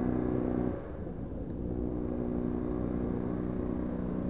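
An engine running steadily; its hum drops away a little under a second in and returns more faintly about a second later.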